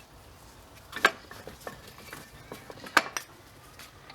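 Spanner and loose metal parts clinking against a Scott Bonnar 45 reel mower's steel frame and nuts while it is being taken apart: two sharp clinks about two seconds apart, with lighter ticks in between.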